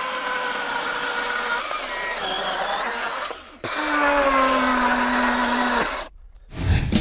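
Milwaukee M18 FUEL brushless cordless chainsaw cutting through a log, the chain tearing wood while the motor whines under load. It breaks off briefly a little over three seconds in, runs through a second cut with a steadier whine, and stops near the end.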